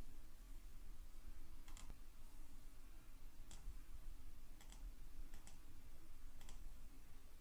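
Faint computer mouse clicks, several spread through, a few in quick pairs, over a low steady hum.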